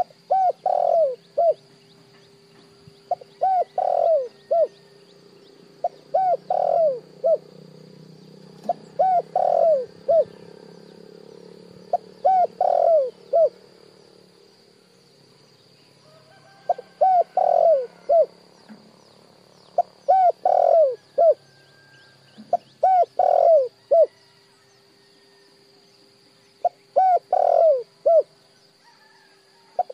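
Spotted dove cooing: phrases of three or four short, arched coos, repeated about every three seconds with one longer pause midway, over a faint steady hum.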